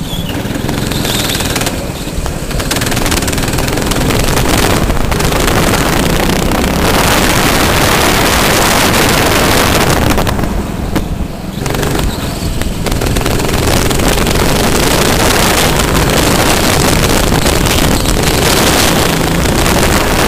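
Go-kart engine running hard at racing speed, with wind noise on the microphone. The sound dips briefly about ten seconds in, then picks up again.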